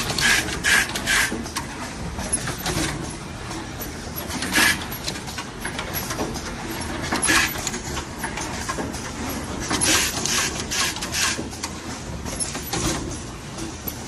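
Automatic wire piercing-connector crimping and assembly machine running: its pneumatic cylinders stroke with short, sharp bursts over a steady mechanical background. The strokes come in irregular groups, with a quick run of several about ten seconds in.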